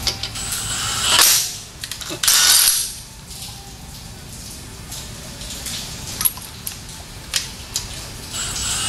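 Steel lug nuts clinking and scraping against metal as they are handled and test-threaded by hand onto wheel studs: a string of sharp clicks, with two short bursts of metallic rattling about a second and two and a half seconds in.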